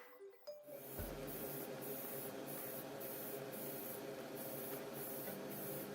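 Airbrush spraying thinned paint in short repeated bursts, a hiss that cuts in and out every half second or so over a steady low hum.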